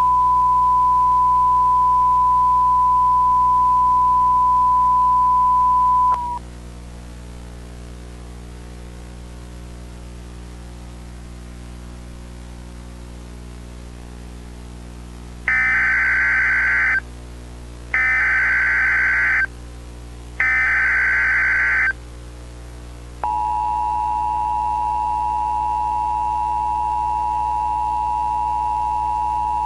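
Emergency Alert System broadcast: a steady single high test tone for about six seconds, then a low electrical drone, then three short bursts of warbling digital SAME header data, then the two-tone EAS attention signal held steady.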